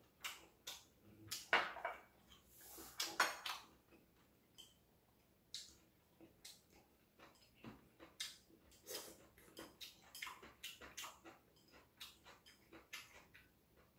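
Chopsticks clicking and tapping against ceramic side-dish plates and bowls while a person eats, with quiet chewing. A few short breathy rushes, likely sniffs, come about two to three seconds in.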